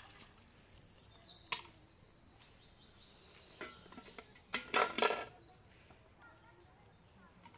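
Carrots knocking and clattering against a metal basin as they are washed, with one sharp knock about a second and a half in and a louder run of ringing clatter near the middle. Small birds chirp in the background.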